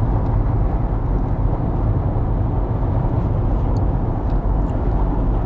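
Steady low rumbling background noise, with a few faint taps from typing on a phone touchscreen.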